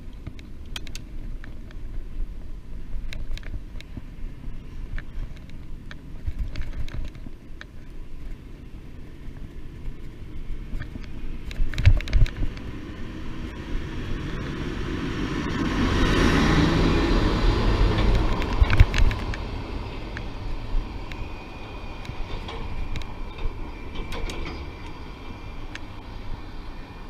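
Wind rumbling on the microphone of a camera on a moving bicycle, with scattered clicks and rattles. A little past halfway a vehicle swells past with a rising and falling hiss of tyres, the loudest part of the clip.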